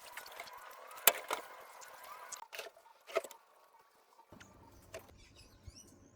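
Several sharp knocks and clunks, the loudest about a second in, as a car's fuel tank is worked loose from underneath. A faint steady hum runs under them and stops about halfway through.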